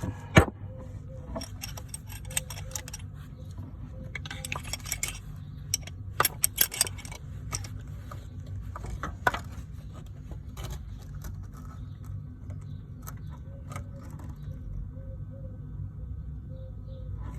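Metal tools clinking and clicking against the brake caliper in irregular bursts, the loudest clink about half a second in, over a steady low hum.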